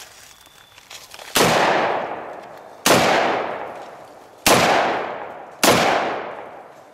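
Four rifle shots from a Ruger Mini 14, a semi-automatic .223 rifle, fired about one to one and a half seconds apart, each trailing off in a long echo.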